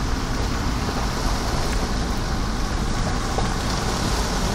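Pickup truck driving along a wet road, heard from inside the cab: a steady rumble of engine and tyres with a hiss of water off the tyres.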